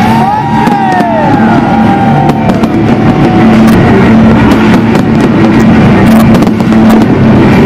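Fireworks going off in a rapid string of bangs and crackles over loud music, the bangs thickest from about three seconds in.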